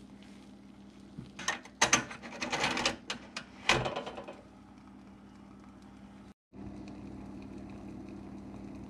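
Metal rattling and clicking as the small burner tray is handled at the firebox of a Wilesco D145 toy steam engine, over a steady low hum. The rattling comes in a cluster between about one and a half and four seconds in.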